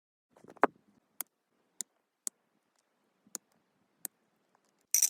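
A series of single sharp clicks, spaced about half a second to a second apart, then a short, loud scraping hiss near the end.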